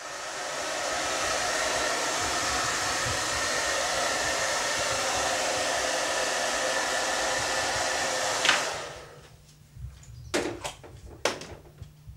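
Handheld hair dryer blowing steadily on the fur of a taxidermy mount. About eight and a half seconds in it is switched off with a click and winds down. A few sharp knocks follow.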